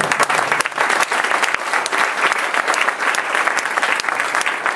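Audience applauding: many people clapping at once.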